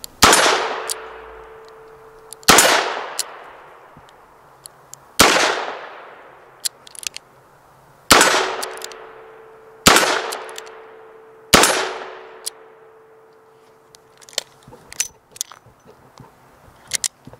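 Six shots from a Dan Wesson 715 .357 Magnum revolver, each a sharp crack with a long echoing tail, fired about two to three seconds apart. Near the end comes a run of light metallic clicks as the cylinder is swung open.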